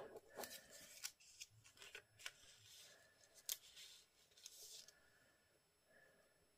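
Faint snips of scissors cutting paper: several sharp clicks spread over the first five seconds, with a short paper rustle near the end of them.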